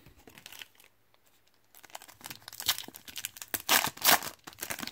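Foil wrapper of a 2018 Panini Contenders football card pack crinkling and tearing open in the hands, starting about two seconds in and loudest near the four-second mark.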